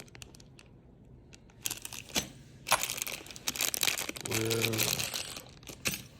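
Plastic packaging rustling and small metal parts being handled, with light clinks and clicks, starting about a second and a half in.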